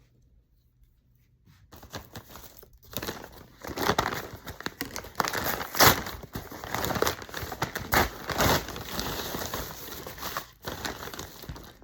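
A shipping package being torn open and its packaging crinkled and rustled by hand, starting about two seconds in. It is a dense run of crackling, crumpling and ripping noises.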